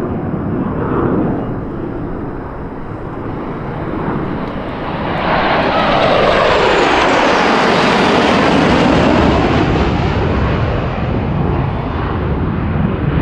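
Formation of five F-16 Fighting Falcon jets flying past. The jet noise builds from about five seconds in and is loudest in the middle, with a whine that falls in pitch as the formation goes by, then eases off near the end.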